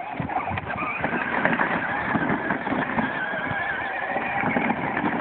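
Battery-powered Power Wheels John Deere Gator ride-on toy driving over sandy gravel: a steady, slightly wavering electric motor and gearbox whine over the crunch of its plastic wheels.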